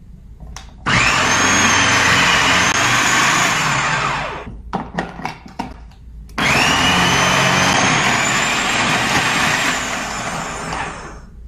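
Food processor motor running with its shredder disc, grating potato and onion pushed down the feed tube. It runs twice, starting about a second in and again about halfway through, each time spinning up with a rising whine and winding down at the end, with a few knocks in between.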